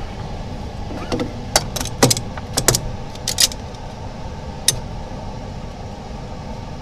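Small hard parts clicking and tapping as an iPhone screen and glass are handled and set into a laminator's mould: a quick run of sharp clicks after about a second, then one more a little later, over a steady low hum.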